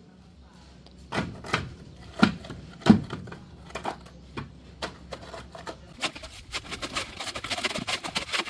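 Rubber hammer tapping the OSB plywood concrete form four times with dull knocks, working air pockets and aggregate out of the fresh pour. From about six seconds in, a rapid gritty clicking and scraping of shovels turning wet concrete mix by hand.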